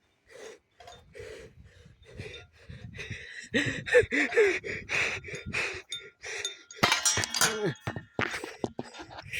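Metal parts clinking and knocking as they are handled, growing busier after a few seconds, with a loud ringing clang about seven seconds in.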